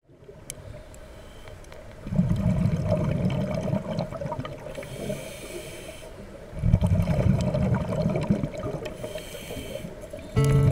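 Scuba diver breathing through a regulator underwater: twice a long, low bubbling rumble of exhaled air, each followed by a shorter hiss of an inhale. Music comes in at the very end.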